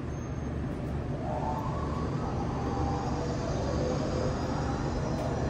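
Steady low mechanical hum of kitchen machinery running without a break.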